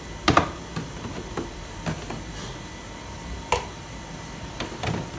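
Plastic food-storage containers knocking and clacking as they are lifted out and moved around on refrigerator shelves. The loudest is a double knock just after the start, followed by scattered lighter clacks.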